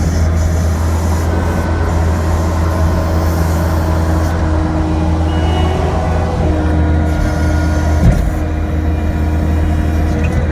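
Kubota SL75-2 tracked skid steer's diesel engine running steadily as the machine drives, with whining tones that step up and down in pitch, heard from the cab. A single knock about eight seconds in.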